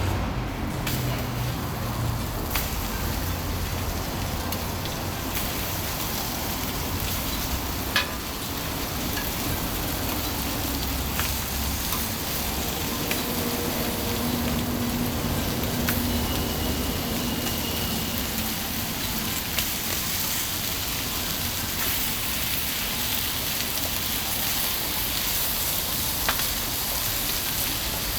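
Okonomiyaki frying on a hot griddle, a steady sizzle broken by a few sharp clicks.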